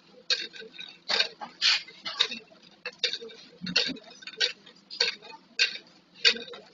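Plastic flip-top bottles clacking and knocking together as they are handled and counted: irregular sharp clicks, a few each second.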